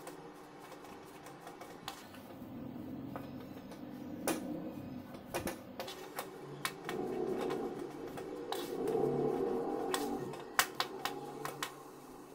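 A steel spoon scraping and clinking against a metal kadai as a thick gram-flour and ghee paste is stirred on the stove, with irregular sharp taps over a steady scrape.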